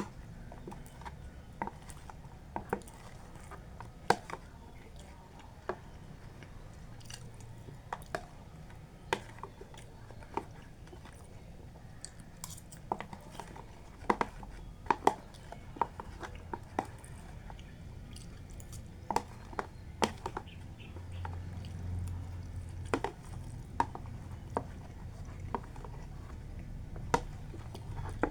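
A person chewing and biting food close to the microphone, rice with grilled pork (moo nam tok), with irregular sharp wet mouth clicks and smacks.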